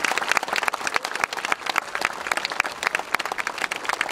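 Crowd applauding: many hands clapping in a dense, continuous patter, welcoming a speaker onto the stage.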